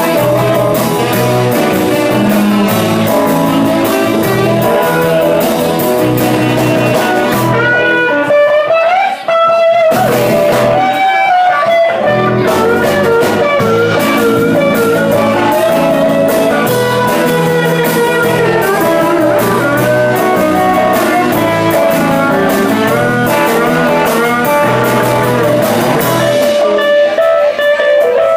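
Live blues band playing, electric guitar to the fore over bass, drums and keyboard with saxophone. About eight seconds in, the low end and drums drop out for a few seconds, leaving a bending lead line before the groove comes back.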